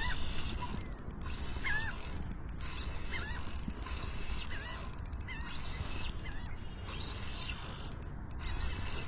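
Spinning reel being cranked to retrieve a jig, its turning mechanism giving a short squeak roughly once a second over the steady whir of the retrieve.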